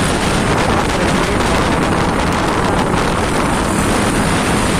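Steady wind rush over the microphone while riding a Honda PCX scooter, mixed with the scooter's engine and tyre noise on the road.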